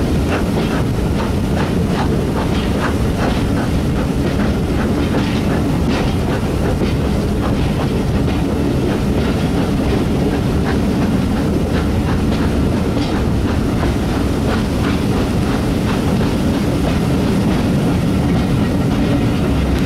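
Steam-hauled passenger train running, heard from a carriage window: a steady rumble with frequent clicks of the wheels over the rail joints.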